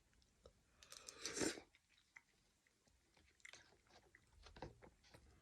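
Soft chewing and wet mouth noises of someone eating chicken noodle soup, with a louder mouth noise about a second in and more chewing clicks later on.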